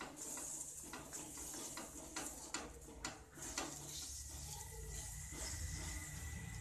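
Hand patting and pressing soft tapioca-and-chana-dal adai dough flat onto a cast-iron tawa: irregular soft pats and light taps, several a second, thickest around the middle.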